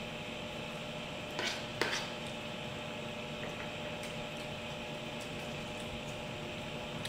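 Steady room hum and hiss, as from a fan or appliance, with two short sharp clicks about a second and a half in.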